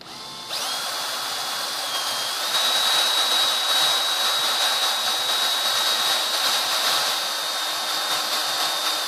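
Cordless drill running continuously with a small bit, cutting away material to open up an aileron servo pocket in a composite glider wing. A steady high motor whine rises a little in pitch about two and a half seconds in and cuts off abruptly at the end.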